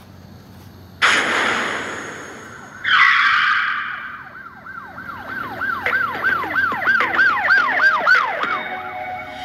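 Edited intro sound effects: a sudden whoosh about a second in, a second whoosh that falls in pitch near three seconds, then a run of quick siren-like chirps that rise and fall about three times a second.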